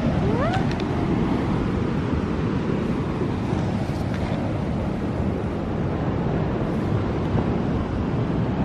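Steady wind rumble on the microphone, with one short rising meow from a tortoiseshell cat about half a second in.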